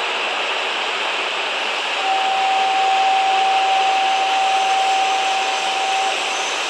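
Steady rushing noise, with a single steady tone that starts about two seconds in and stops about four seconds later.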